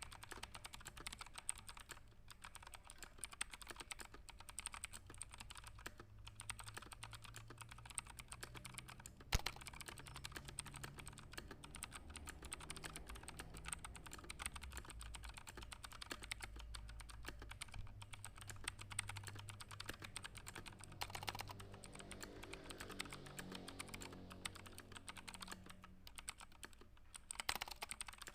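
Computer keyboard being typed on fast and continuously for a typing test, keys clicking in rapid runs broken by a few brief pauses.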